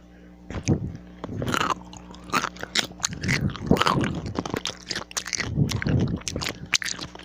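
Pickle being bitten and chewed close to the microphone: a dense, irregular run of wet crunches.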